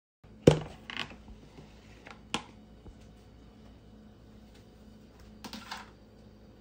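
A few light, scattered knocks and clatters of tableware being handled at a meal, with a short run of clattering near the end, over a faint steady low hum.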